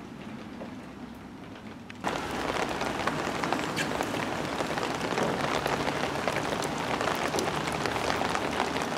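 Steady rain, a dense patter of drops that cuts in abruptly about two seconds in after a low hiss.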